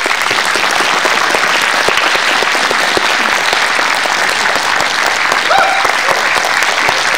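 Spectators applauding: dense, steady clapping from a small crowd.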